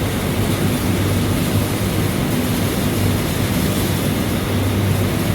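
Steady machine drone, a constant hiss with a low hum that swells and fades every second or so.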